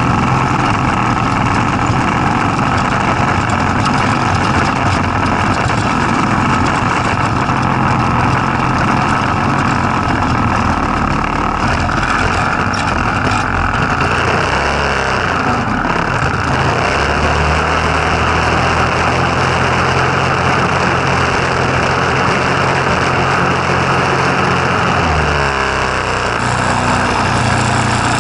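Go-kart's Tecumseh small engine running while driving, its note shifting in pitch about halfway through and dropping near the end, over a steady rushing noise.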